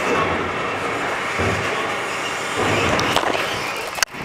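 Refuse collection lorry working in the street: a steady mechanical noise with low rumbling swells, then a run of sharp knocks and clicks near the end.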